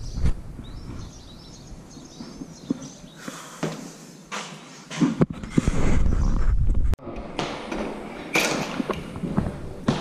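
Footsteps and handling noise from a carried camera: scattered knocks and thuds, with a heavy low rumble on the microphone from about five to seven seconds in that stops abruptly.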